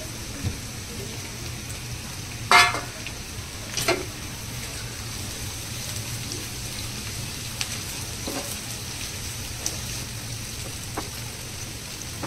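Sliced bitter gourd (karela) frying in hot oil in a pan: a steady sizzle. A spoon stirs and clatters against the pan twice, about two and a half and four seconds in.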